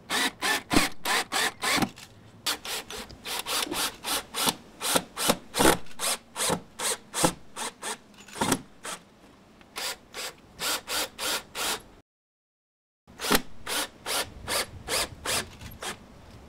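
Cordless drill driving screws through a steel door jamb shield into a wooden door jamb: a steady run of sharp clicks, about four a second. The clicks break off for about a second of silence about three-quarters of the way through.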